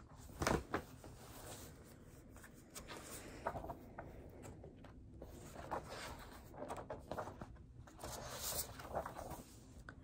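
Pages of a large picture book being turned and handled: paper rustling and brushing in scattered bursts, loudest about half a second in.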